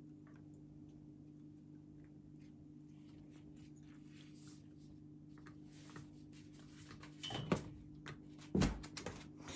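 Puppies gnawing and tugging a rubber chew toy on a dog bed: faint scattered clicks and rustles over a steady low hum, then a few louder knocks and thumps near the end as they scramble.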